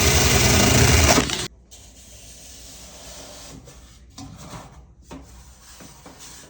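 A loud motor-driven machine runs with a steady rushing noise, then shuts off abruptly about a second and a half in. Faint rubbing and small clicks follow.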